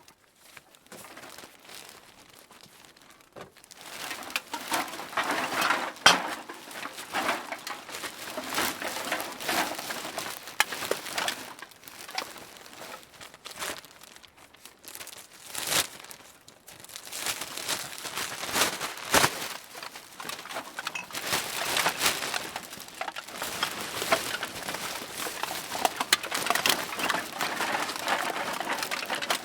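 Cans being dropped into a bag: the bag crinkles and rustles in stretches, broken by sharp knocks as cans land, the loudest about six seconds in.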